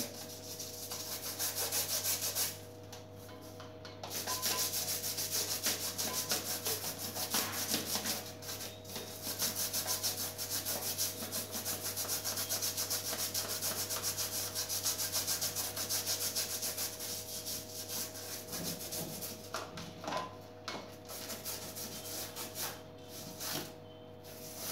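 Bristle brush scrubbing the plastic mesh of a split air-conditioner filter in quick, even back-and-forth strokes, stopping briefly about three seconds in and growing lighter and more broken near the end.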